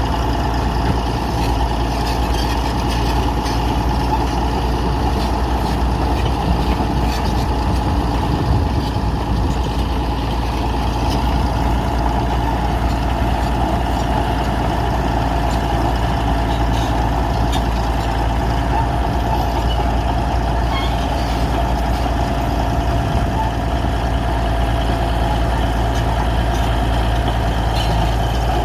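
Bulldozer's diesel engine running steadily with a deep rumble, no pauses or big changes in pitch.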